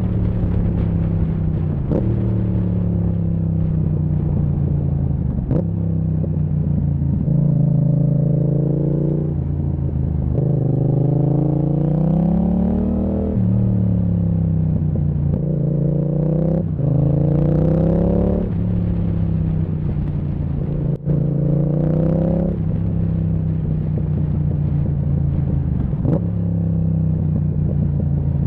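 Yamaha MT-07's parallel-twin engine running through an aftermarket Zard exhaust, revving up and dropping back repeatedly through the gears. Several sharp pops cut through it: misfires that the owner puts down to the Zard exhaust in 2nd to 4th gear.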